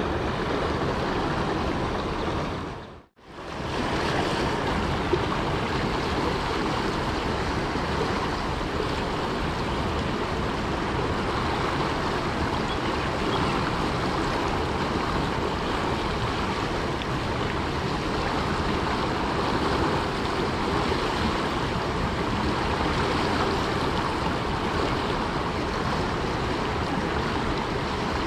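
River water rushing steadily, an even hiss of flowing water, fading briefly to near silence about three seconds in and then coming straight back.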